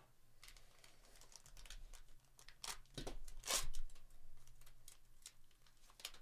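Foil wrapper of a Panini Select UFC trading-card pack being torn open and crinkled by hand, a run of short crackles with the loudest about three and a half seconds in.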